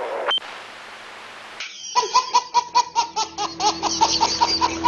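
A baby laughing hard in quick, repeated bursts, several a second, starting about two seconds in. Before that there is a faint hiss.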